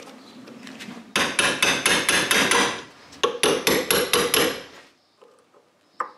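Hammer tapping on a screwdriver used as a drift against the slotted stem nut of a Harley Sportster fork yoke, to knock the nut round. It comes as two quick runs of sharp metallic blows, about four a second, each run lasting a second and a half to two seconds, with a short pause between them.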